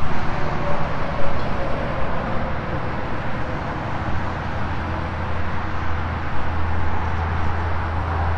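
Outdoor vehicle and traffic noise: a steady rushing haze with a low engine hum that grows stronger about halfway through.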